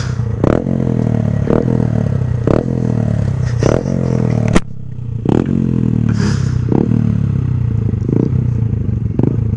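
Motorcycle engines idling at a standstill while one is blipped in short revs about once a second, each rev dropping back to idle. A single sharp knock about halfway through.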